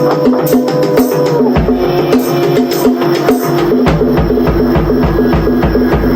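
Drum solo: fast, dense drumming with woodblock-like clicks over a repeating low pitched figure. A deep bass layer comes in about one and a half seconds in, drops out, and returns near four seconds.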